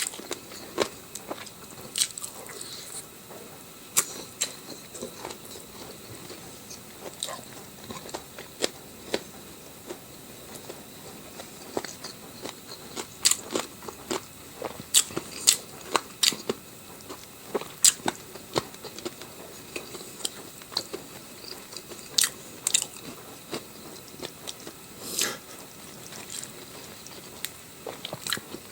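A person eating close to the microphone: irregular crunching bites and chewing, with sharp crunches every second or so.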